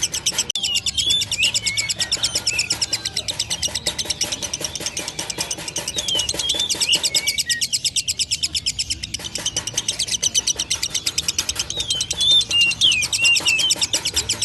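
Lovebird singing a long, unbroken rapid rattling trill (the 'ngekek' chatter), with short sliding chirps scattered over it.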